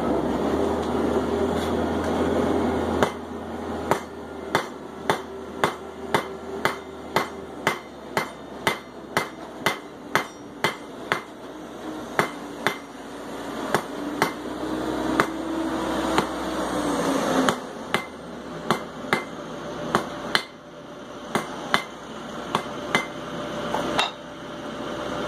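Blacksmith's hammer striking hot steel on an anvil, drawing a short taper on the end of a 3/8-inch bar: a steady run of blows about two a second starting about three seconds in, with a couple of short pauses. A steady rushing noise runs underneath before the hammering starts.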